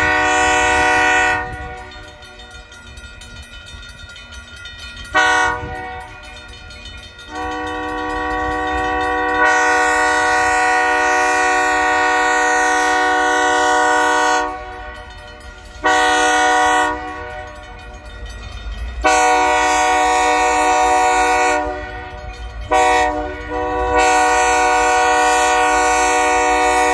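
Diesel locomotive air horn sounding a series of long and short blasts as the train approaches a grade crossing: the standard crossing warning. The longest blast starts a few seconds before the end and runs on past it.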